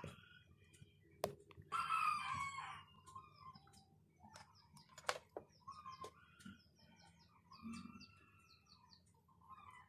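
A rooster crows about two seconds in, with further fowl calls and small-bird chirps after it, and a few sharp clicks.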